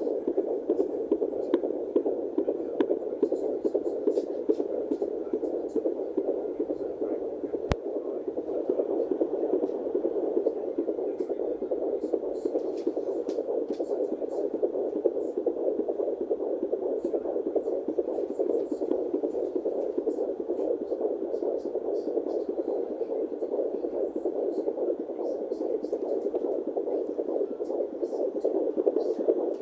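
Fetal heartbeat of a 17-week fetus picked up by a handheld fetal doppler and played through its speaker as a continuous pulsing whoosh. A few sharp clicks come in the first eight seconds.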